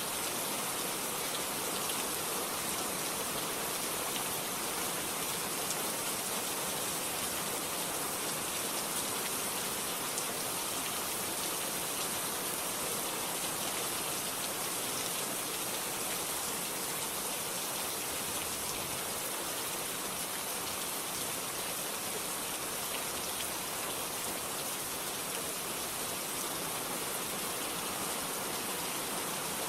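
Steady rain falling, an even hiss with scattered fine drop ticks and no thunder.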